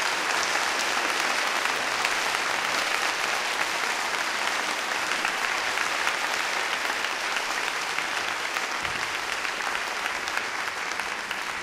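Concert audience applauding, a dense, steady clapping that eases slightly near the end.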